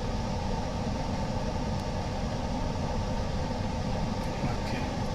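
Steady mechanical hum and hiss of a machine running, even throughout.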